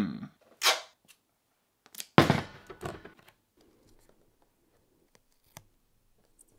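Handling noise from a phone and a strip of clear tape. There is a short hiss under a second in, then a thump with a tearing crackle about two seconds in, and faint small clicks after that.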